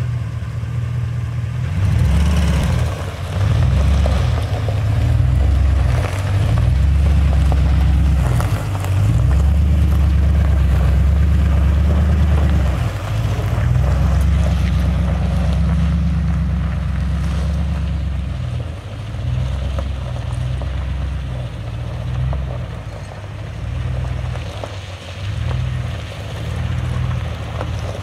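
Wind buffeting the microphone in uneven gusts over the 2005 Chevrolet Silverado 2500HD's 6.0-litre gas V8 running at idle.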